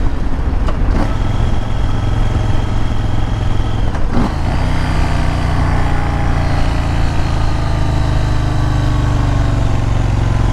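Motorcycle engine running while riding, with a sharp click about four seconds in, after which the engine note slowly falls as the bike eases off.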